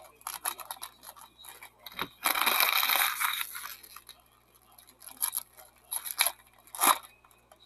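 Foil baseball card pack wrappers crinkling in the hands and being torn open, with one long rip about two seconds in and scattered crinkles and snaps after it.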